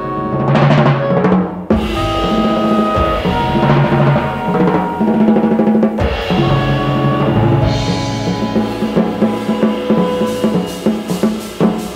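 Live band music with the drum kit to the fore: drums and cymbals played over double bass and held pitched notes from the rest of the ensemble, with steady cymbal strokes about four a second near the end.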